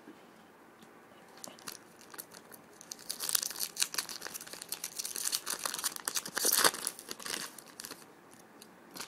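Trading card pack wrapper being torn open and crinkled by hand. The crackling rustle is busiest in the middle, with its loudest crinkle about two-thirds of the way through, then dies away.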